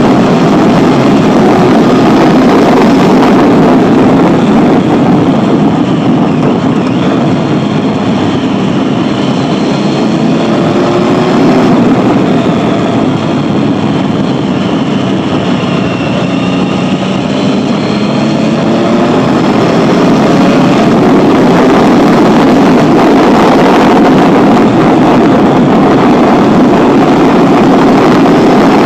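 Engine of a small open vehicle running at road speed, with wind noise on the microphone. The engine note eases off and falls about halfway through, then picks up again.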